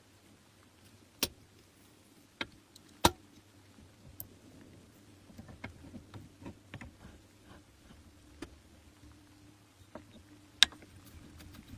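Scattered sharp clicks and knocks of tools and metal parts being handled, with a run of quicker, lighter ticks in the middle, over a faint steady hum.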